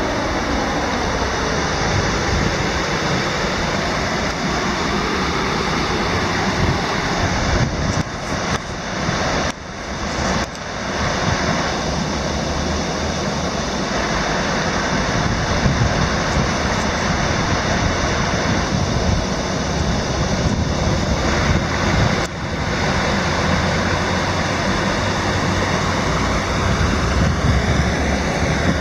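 Steady rush of river water spilling over a stepped block-stone weir, with wind rumbling on the microphone.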